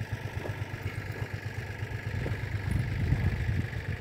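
Yanmar US300D tractor's diesel engine running with a low, steady throb that grows a little louder about three seconds in.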